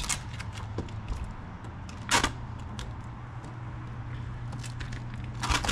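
Sheet of vinyl wrap film being handled and smoothed by hand: faint crinkles and two short, louder rustles, one about two seconds in and one near the end, over a steady low hum.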